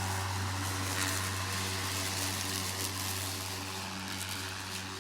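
Ego 22-inch cordless electric lawn mower running: a steady hum from the motor with the airy whoosh of the spinning blade, holding an even level throughout.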